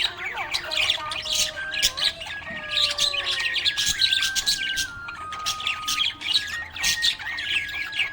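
Budgerigars chirping and chattering busily in quick, continuous high chirps and squawks, with a thin tune of held notes playing underneath.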